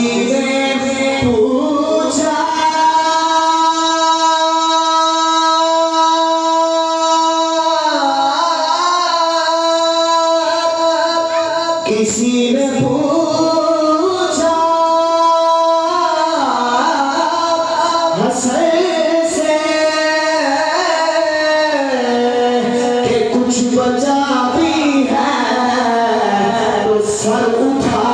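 Solo devotional singing: a single voice holds long notes that slide and waver, in a slow, drawn-out melismatic passage, with quicker ornamented runs in the second half.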